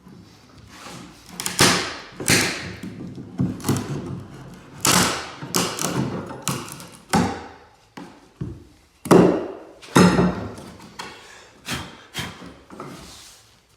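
Irregular wooden thumps and knocks, about a dozen, uneven in spacing and loudness, from pine floorboard pieces being handled and knocked into place.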